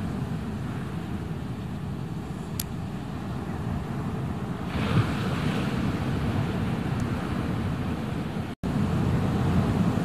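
Ocean surf: waves breaking and whitewater rushing in a steady low wash, with a louder hissing rush about five seconds in. Near the end the sound drops out for an instant.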